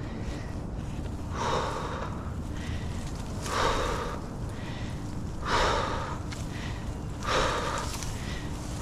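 A climber breathing hard from exertion, with a heavy breath roughly every two seconds, five in all.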